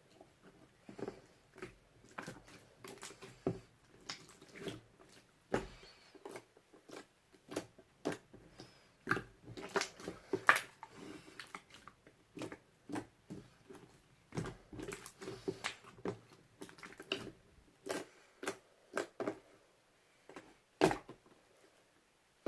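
Irregular light clicks and knocks, close by in a small room, coming several a second at times and pausing now and then.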